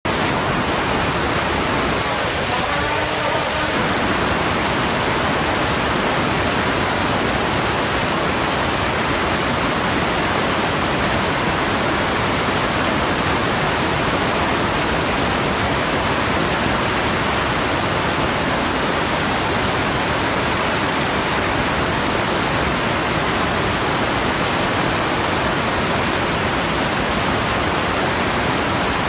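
A crowd clapping their hands in sustained, dense applause that holds steady throughout.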